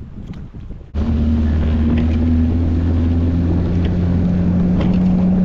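Small outboard motor driving a plastic skiff at speed: a loud, steady engine drone over the rush of water and wind, cutting in abruptly about a second in. Partway through, the engine's note shifts a little lower.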